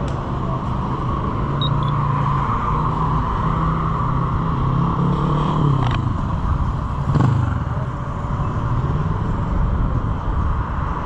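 A motor vehicle's engine passing by on the street, its hum dropping in pitch as it goes past about halfway through, followed by a short louder burst of noise a second later.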